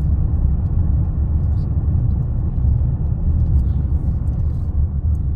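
Van driving at a steady, slow speed: a low, steady rumble of engine and tyres on the road.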